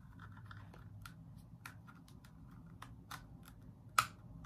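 Hard plastic parts of a small handheld USB mini vacuum clicking and scraping together as its nozzle is worked back on, a series of light clicks with a sharper snap about four seconds in as it seats.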